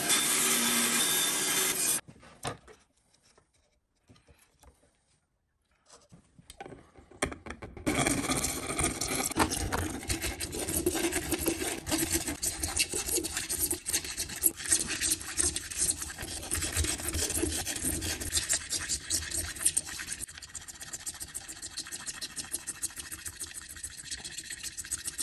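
A bandsaw cutting a curve in a clear plastic strip for about two seconds, then near silence. From about eight seconds in, a hand file rasps back and forth in quick strokes along the cut edge of the plastic.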